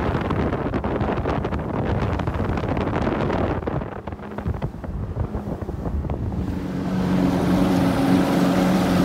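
Wind buffeting the microphone over the rush of water as a boat moves across a lake. About two-thirds of the way in, the steady hum of the boat's motor comes through.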